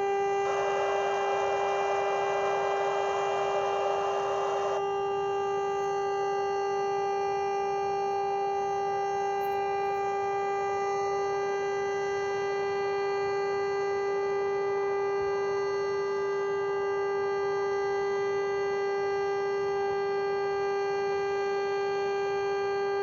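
Air raid siren sounding one steady, unwavering tone, with a hiss over it for the first five seconds or so.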